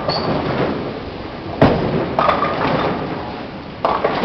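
Bowling alley clatter: bowling balls striking pins, with a sharp crash and rattling pins after each. The crashes come about a second and a half in, a little after two seconds and near the end, the first of these the loudest.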